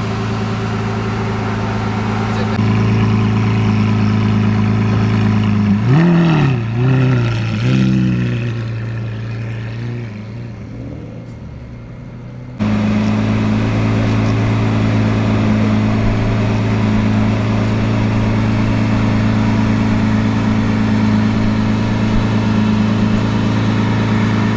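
Lamborghini Aventador S Roadster's 6.5-litre naturally aspirated V12 idling with a steady low hum, then blipped three times in quick succession about six seconds in, the revs rising and falling each time. The sound then fades over several seconds before the steady idle comes back abruptly.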